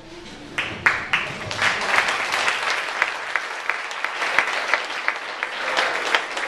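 Audience applause breaks out about half a second in, just as the last notes of a song die away. It is a dense spread of clapping, with sharp individual claps close by.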